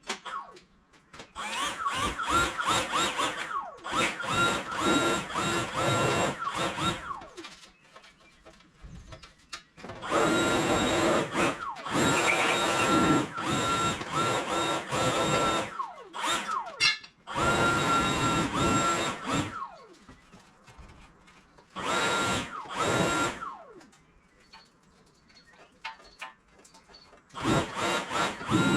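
Two-stroke Stihl strimmer (brush cutter) revved to full throttle in repeated bursts of one to six seconds. Each burst holds a steady high whine and winds down with a falling pitch between cuts.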